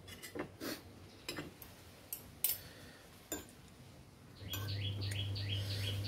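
Metal spoon and fork clinking and scraping on ceramic plates, a few sharp clicks over the first three seconds. About four and a half seconds in, a bird starts a fast run of short falling chirps, several a second, over a low steady hum.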